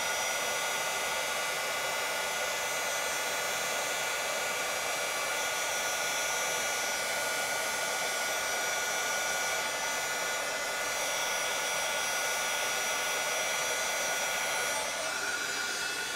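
Embossing heat tool running steadily, a blower's rush with a steady high whine, as it melts clear embossing powder on a stamped card.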